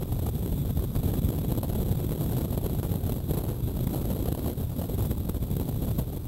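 Wind buffeting the camera microphone: a steady, low rumbling blow, with breaking surf mixed into it.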